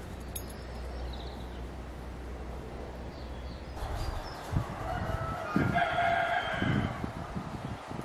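A rooster crowing: one long call with a few shorter rises, starting about four seconds in and lasting around three seconds.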